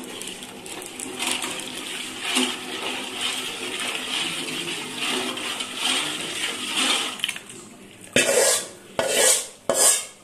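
Rice batter being poured into boiling water in a metal pot while a ladle stirs it: a steady wet swishing. From about eight seconds in, the ladle gives several louder scrapes and knocks against the pot.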